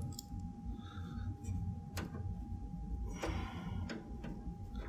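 A few sharp clicks and taps of metal on metal as a screw is driven with a screwdriver to fasten a graphics card's bracket into a PC case, over a faint steady hum.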